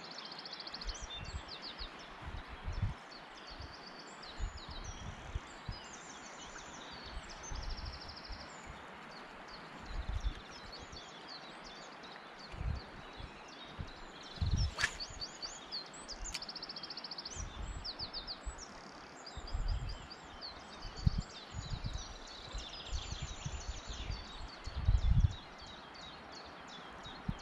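Several songbirds singing in trills and quick runs of repeated high notes over a steady outdoor hiss beside a river. Low rumbling thumps come and go, the loudest about two seconds before the end, and there is one sharp click about halfway.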